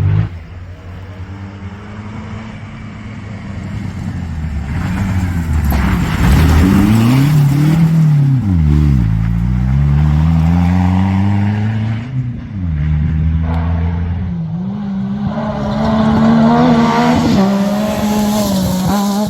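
Rally car on a gravel stage, its engine revving hard with the pitch rising and dropping several times as it changes gear and lifts off, over a hiss of tyres on gravel. Near the end an engine note climbs steadily as a car accelerates.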